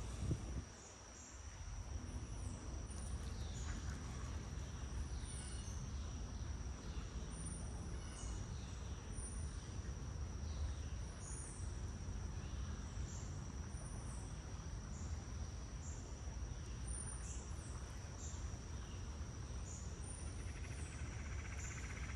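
Crickets or similar insects trilling in one steady high tone, with short high chirps repeating about once a second, over a steady low rumble.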